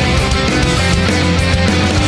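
Background rock music with distorted electric guitar and a steady beat.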